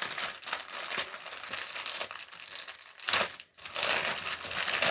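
Clear plastic packaging of a strip of diamond-painting drill bags crinkling as it is handled and unrolled, stopping briefly about three and a half seconds in.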